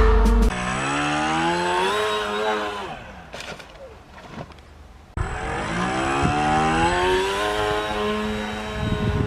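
RC model plane's motor and propeller running, the pitch rising as the throttle comes up, holding, then falling away low. It starts again abruptly about five seconds in and climbs to a steady high pitch.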